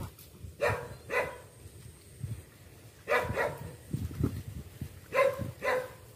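A dog barking repeatedly, six short barks in three pairs a couple of seconds apart.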